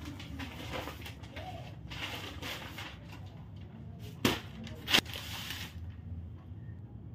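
Newspaper rustling as it is unfolded, then two sharp snaps about three-quarters of a second apart as it is shaken open, followed by a brief rustle.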